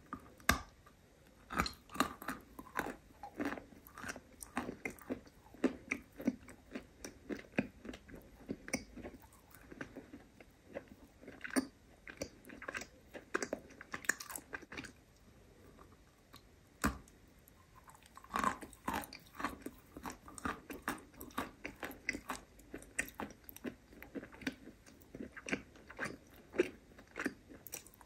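Close-miked biting and chewing of a dry, crumbly white chalk-like lump: irregular crisp crunches and crumbling cracks, with a short lull about halfway broken by one sharp crack.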